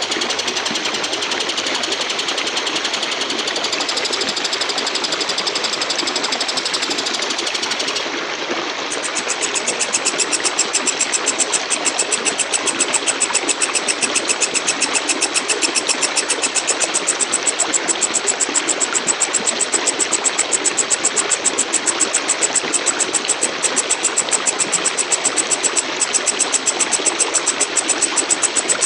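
Walang kecek katydid stridulating: a loud, high-pitched buzzing trill that changes about eight seconds in to a sharper, evenly pulsed ticking trill, the pulses coming several times a second.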